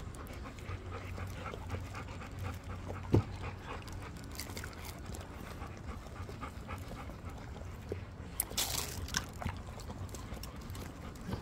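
Golden retrievers panting in the heat while being hand-fed, with small wet clicks of chewing and licking and a brief hissy burst about eight and a half seconds in.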